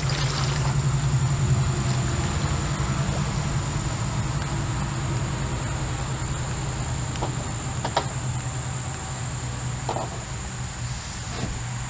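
Steady high-pitched drone of insects, with a low steady rush underneath and a few faint clicks in the second half.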